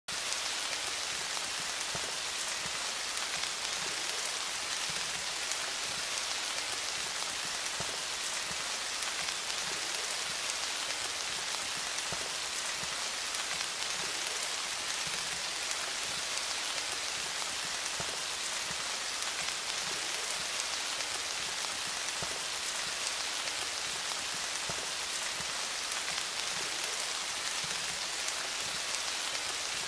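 Steady rain falling: an even, bright hiss of many drops that does not change.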